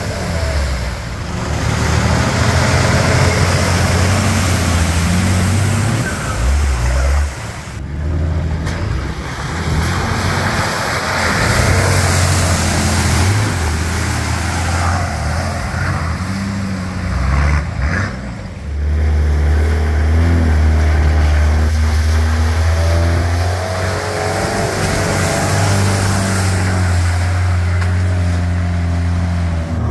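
Off-road vehicle engines working under load as a Toyota Hilux and a Nissan Patrol drive through deep mud, revs rising and falling, with tyres churning mud and water. The sound changes abruptly about 7 and 18 seconds in as one clip gives way to the next.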